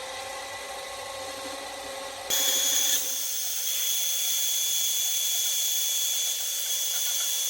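Mini lathe running steadily, then about two seconds in the cutting tool bites into the spinning hex bar as it is turned down to diameter, adding a louder, steady high-pitched whine and hiss of cutting.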